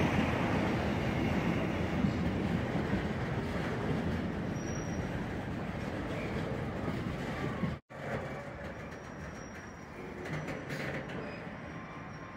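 South Western Railway passenger train running out along the platform, its rumble of wheels on rails steadily fading as it draws away. All sound cuts out for a split second about eight seconds in. Faint thin wheel squeal follows in the later seconds.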